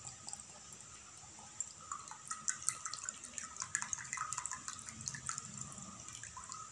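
Coconut water trickling and dripping from a hole punched in a coconut's eye into a tumbler: a faint, irregular patter of small splashes, busiest in the middle.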